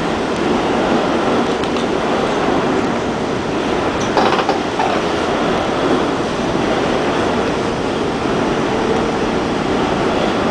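Subway train running through a station: a steady rumble and rattle of wheels on rail, with a short clatter about four seconds in.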